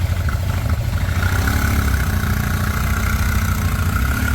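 A vehicle's engine running steadily, with a heavy low rumble and a faint steady whine from about a second in.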